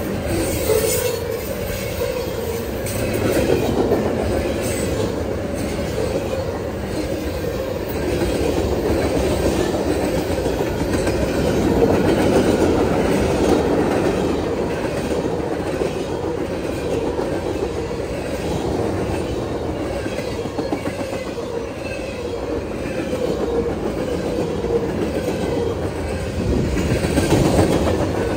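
CSX freight train cars rolling past steadily on steel wheels, clicking over the rail joints.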